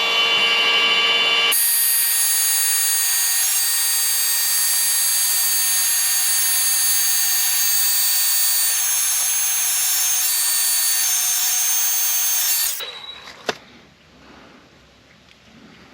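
DeWalt heat gun running, its fan motor giving a steady high whine with rushing air while it shrinks heat-shrink tubing on a wire connector. The sound changes abruptly about a second and a half in and cuts off about 13 seconds in. A single click follows.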